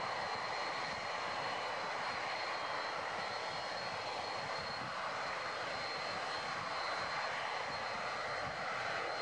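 Boeing 747-400's four turbofan engines running at taxi power as the jet rolls by: a steady, even jet noise with a thin, steady high whine on top.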